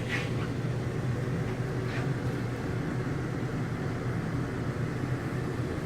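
RV rooftop air conditioner running with a steady low hum and the rush of its blower, just after being switched on in cooling mode. A brief faint higher sound near the start and another about two seconds in.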